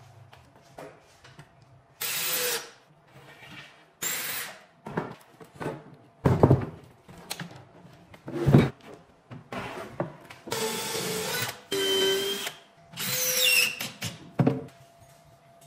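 Cordless drill driving screws into cabinet panels in about seven short bursts of a second or less, each with a whining motor pitch. Two sharp, loud knocks of wooden panels being handled come in between, about six and a half and eight and a half seconds in.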